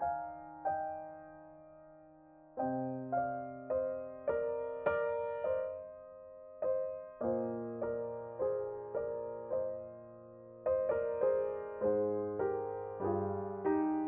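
Background music: solo piano playing a slow, gentle melody of struck notes over sustained bass notes, in short phrases separated by brief pauses.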